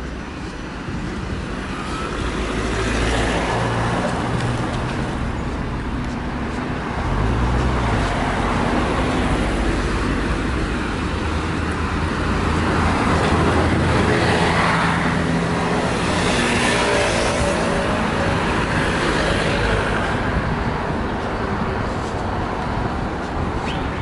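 Road traffic driving past: car and bus engines running with tyre noise, swelling and fading as vehicles pass, loudest about halfway through as a city bus goes by.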